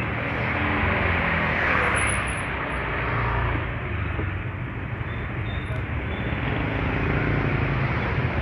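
Small motorbike engines passing close by in a narrow lane, over a steady din of street traffic.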